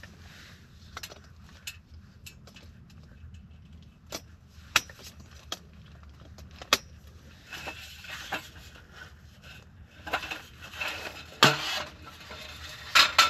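Scattered sharp clicks and light clinks, with bursts of rustling that grow busier from about the middle on: camping gear being handled.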